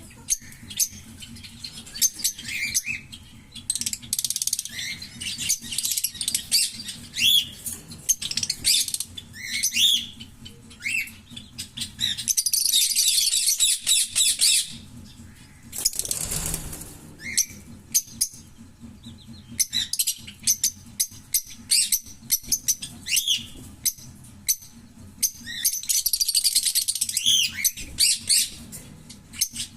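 A pair of green Fischer's lovebirds chirping and chattering in quick, high-pitched notes, with sharp clicks between them. Two longer unbroken runs of rapid song come near the middle and near the end, and a brief rushing burst comes about halfway through.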